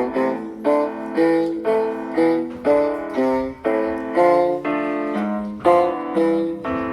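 Background music: a piano playing a gentle tune, notes or chords struck about twice a second, each dying away before the next.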